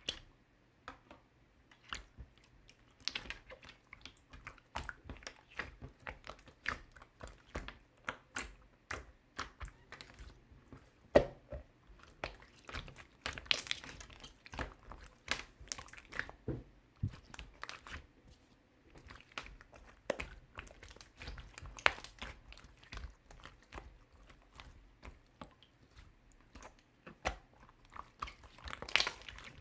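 Sky-blue slime with heart toppings being squeezed, poked and folded by hand: a steady run of sticky clicks, pops and crackles.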